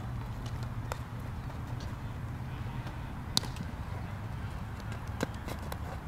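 Baseball infield practice: a few sharp cracks and pops of a bat striking the ball and the ball smacking into a leather glove, the loudest a little past halfway, over a steady low rumble.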